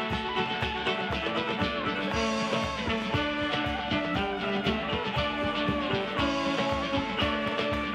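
Live contra dance band playing a dance tune with a steady beat.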